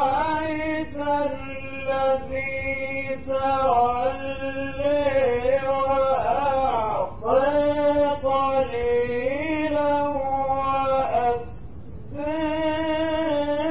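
A man recites the Quran in the melodic mujawwad style, holding long ornamented notes that bend up and down in pitch. He breaks off briefly about halfway through, pauses for about a second near the end, then starts the next phrase.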